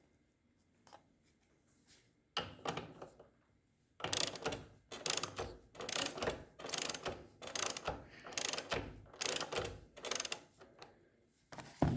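A wrench turning the long M10 bolt of a bushing puller in repeated strokes, about one and a half a second, each with a burst of mechanical clicking. The bolt is drawing the worn engine mount bushing out.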